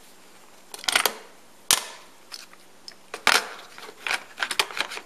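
Sharp plastic clicks and knocks of a cassette tape being lifted out of and pushed into the cassette compartment of a Bang & Olufsen Beocord 5500 deck: a dozen or so separate clacks, with the loudest a little past the middle and a quick run of them near the end.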